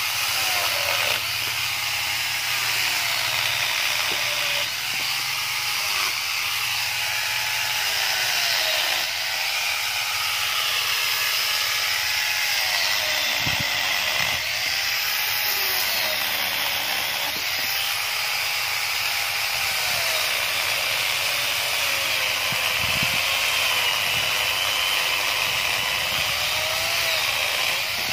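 Electric angle grinder fitted with a chainsaw attachment, running continuously while it cuts mango branches. Its motor whine sags and recovers every second or two as the chain bites into the wood.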